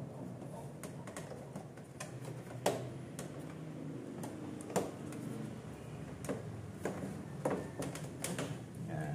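Irregular clicks and knocks of the plastic fairing panels of a scooter being handled and fitted together, with about six sharper knocks among lighter taps, over a steady low hum.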